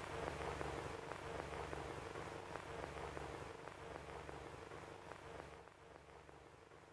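Crackling surface noise, dense small clicks over a hiss like an old film soundtrack or worn record, with a faint steady hum underneath; it fades out gradually.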